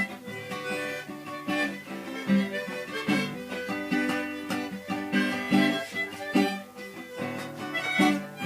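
Instrumental forró break played on an electronic keyboard: a melodic lead with an accordion-type voice over a bass line and a steady dance rhythm.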